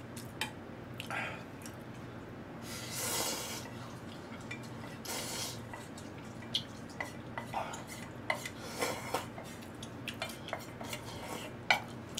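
Eating ramen from metal dishes: a few slurps of noodles and broth, and many light clinks of chopsticks against the metal bowl and aluminium pot, more of them in the second half.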